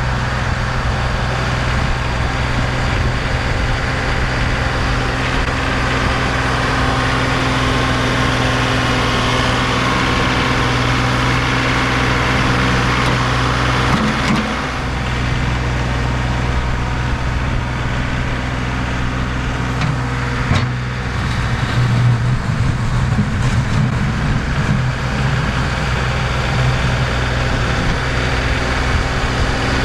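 Tractor engine running steadily under load while plowing snow. It dips briefly about halfway through and runs harder and rougher around two-thirds of the way in.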